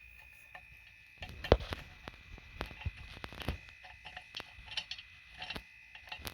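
Irregular small metal clicks and taps starting about a second in, the loudest shortly after: a valve core tool being fitted and turned to thread the valve core back into the tire's valve stem.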